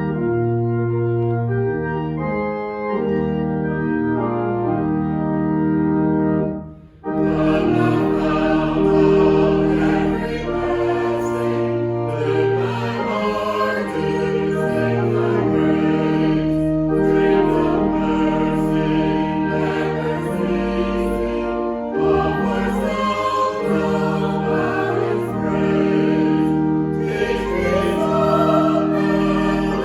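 Organ playing held chords for about seven seconds, stopping abruptly. Then a choir sings a hymn with accompaniment.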